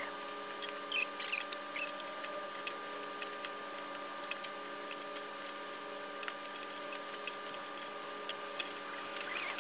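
Clothes hangers clicking and sliding on a clothing rack as dresses are moved along it, with many light, irregular clicks over a steady hum.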